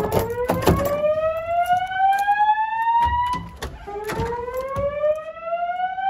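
Fire alarm evacuation whoop tone from Wheelock speaker strobes on a Notifier NFS2-640 voice evacuation system: two slow rising sweeps, each climbing in pitch for about three and a half seconds, the second starting about four seconds in. It is the alarm signal that alternates with the spoken evacuation message.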